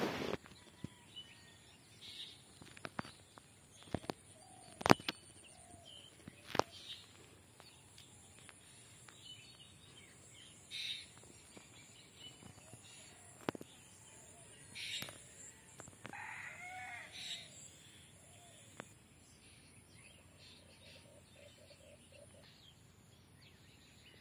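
Morning birdsong with scattered short calls and a rooster crowing once, about sixteen seconds in. A few sharp clicks stand out, the loudest about five seconds in.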